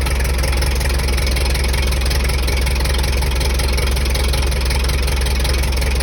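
Leyland six-cylinder diesel of a late-1970s JCB 3C Mk3 backhoe idling steadily, just caught after a long cold start without intake heating.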